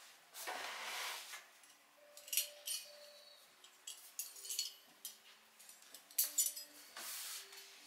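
Metal table knives and forks being laid out on woven placemats on a wooden table: several light metallic clinks and taps with a short ring, between soft swishes of a placemat being set down and hands brushing over it.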